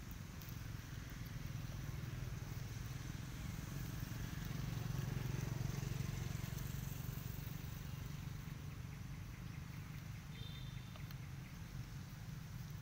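A low steady rumble with a hiss over it, swelling to its loudest around the middle and easing off again, with a brief high chirp near the end.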